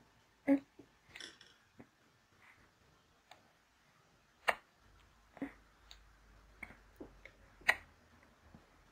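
Scattered faint clicks and taps, a handful spread over several seconds: a plastic toy baby bottle knocking against a vinyl reborn doll's mouth and being handled during a pretend feeding.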